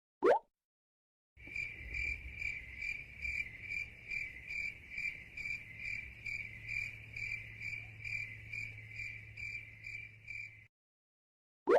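Cricket chirping sound effect used as a meme sound: a steady, high-pitched chirp pulsing about three times a second for around nine seconds, then cutting off suddenly. A short rising sweep sounds just before the chirping starts and again at the very end.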